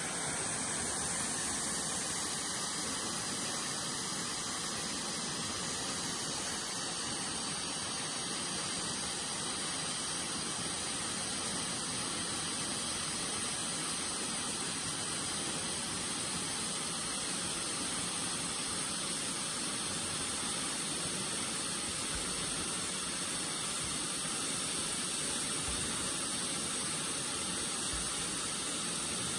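Waterfall pouring into the pool below it: a steady rushing hiss that does not change.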